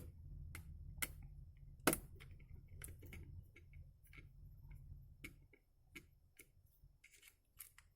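Irregular small clicks and ticks of a screwdriver working screws out of a headset's plastic housing, the loudest about two seconds in.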